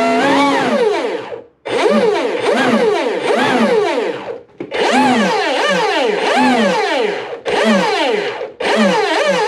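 An RC race boat's electric drive motor and flex cable run dry on the bench, revved up and down in quick throttle blips in short bursts, with brief pauses between. It is turning the newly installed flex cable, in which the owner hears a little cable whip.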